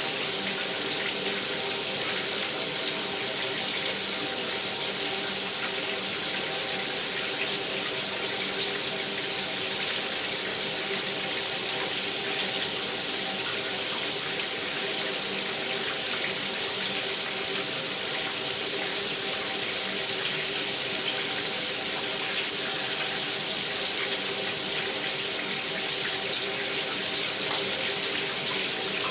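Shower running steadily: an even spray of water hissing with no change in flow.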